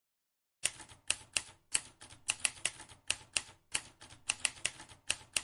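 A run of sharp, irregular clicks, about four a second, starting about half a second in, with the sound of typewriter keys being struck.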